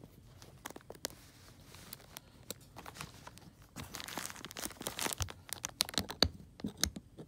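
Quiet handling noise: plastic bags crinkling and rustling, with scattered light clicks and taps as pliers and a metal emblem are handled on the bench.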